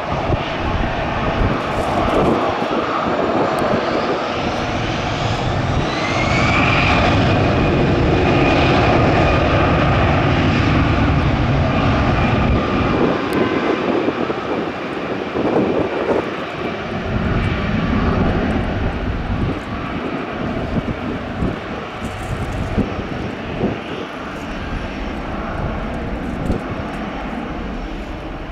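Jet engines of an Airbus A320-214 (CFM56) spooling up to takeoff power: a rising whine about four to six seconds in levels off into a steady high tone over the engine noise. The engine sound then slowly fades as the airliner rolls away down the runway.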